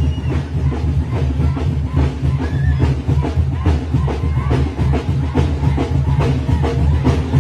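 Mexican banda brass band playing a son, with a strong tuba bass line under brass melody and steady drum beats.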